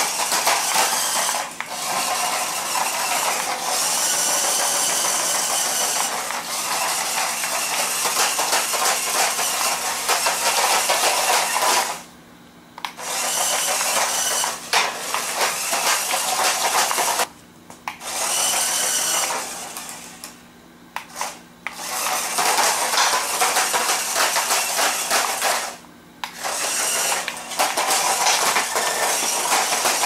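Toy remote-control stunt car's small electric motors whirring as it drives and spins on a laminate floor, its plastic wheels rattling on the boards. It stops briefly four times and starts again.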